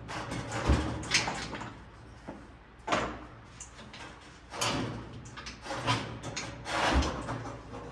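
Hands-on work on a small ATV: an irregular series of knocks, clunks and scrapes as parts and tools are handled, with a couple of heavier thuds.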